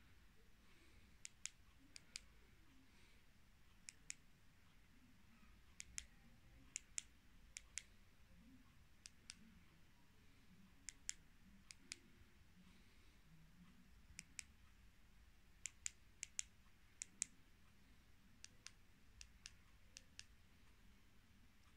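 Buttons on a Baofeng UV-5R handheld radio's keypad being pressed while a frequency is keyed in: about three dozen short, sharp clicks at an uneven pace, mostly in quick pairs.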